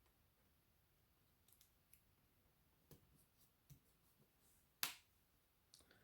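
Quiet handling of a metal cutting die, cardstock and washi tape: a few faint scattered taps and rustles, with one sharper click about five seconds in.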